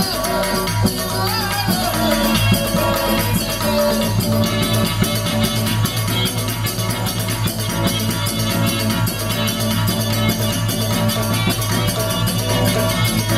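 Live band music over a PA: a man singing into a microphone over a steady rhythm of drums and rattling percussion.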